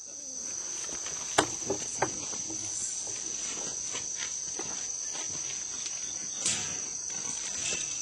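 Steady, high-pitched insect chorus, with a few short sharp knocks and rustles over it, the loudest about a second and a half in.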